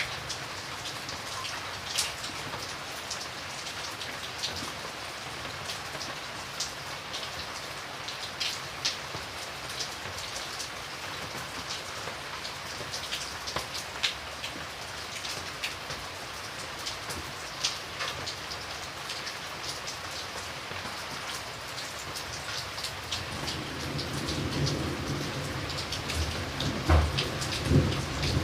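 Steady rain falling, with scattered individual drops ticking sharply on a hard surface. A low rumble of thunder builds in the last few seconds.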